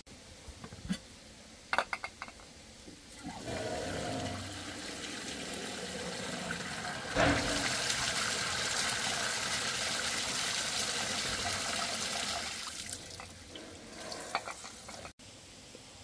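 Water running or splashing steadily for about nine seconds, with a loud knock in the middle and a few sharp knocks before and after it.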